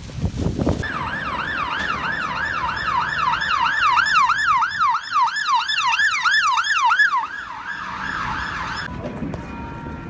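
Briefly, wind flapping a loose plastic sheet; then an ambulance siren in yelp mode, a loud rising-and-falling wail about three times a second. Near the end it switches to a faster warble and then cuts off.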